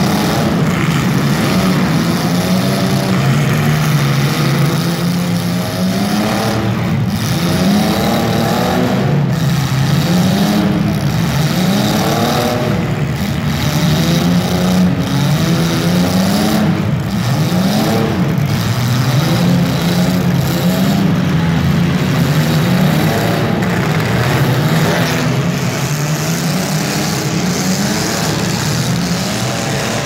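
Compact demolition derby cars' engines revving hard in repeated surges, the pitch climbing and dropping about every two seconds over a continuous engine din.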